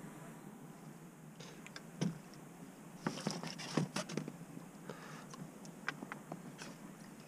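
Scattered light knocks and clicks over a faint hiss, busiest about three to four seconds in: handling noise aboard a boat.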